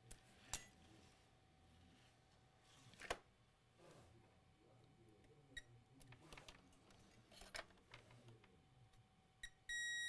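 Near silence broken by a few faint sharp clicks of meter probes touching the circuit board. Near the end, a multimeter's continuity beep starts: one steady high tone that holds.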